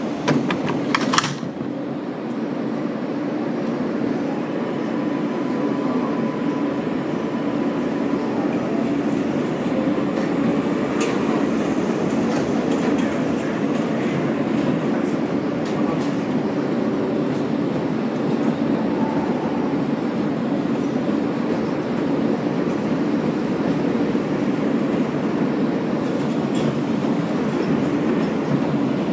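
Inside an R143 subway car pulling away from an elevated station and running along the track: a few sharp knocks in the first second, then a steady rumble of wheels on rail with clickety-clack over the rail joints, growing louder over the first few seconds as the train picks up speed. Around the middle, a train passes on the adjacent track.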